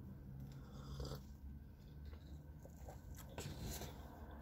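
Faint mouth sounds of a person sipping a drink from a paper cup and chewing a cottage-cheese pastry, with a few small clicks.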